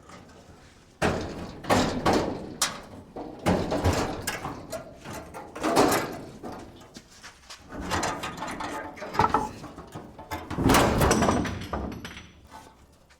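Old steel pickup cab clunking, banging and scraping as it is pried up and shifted on its mounts, a run of irregular knocks and rattles with several louder bangs.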